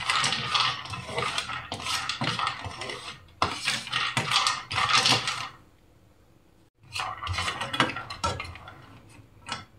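Almonds and cashew nuts stirred in a non-stick frying pan with a large cooking spoon: the spoon scrapes across the pan and the nuts rattle and click against it. The stirring stops for about a second just past halfway, then starts again.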